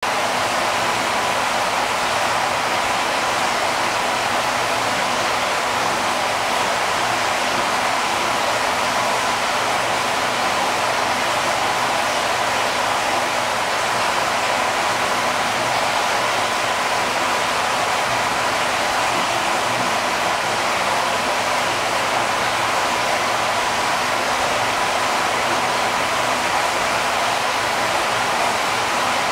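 A steady rushing noise, like running water, with a faint steady high whine running under it.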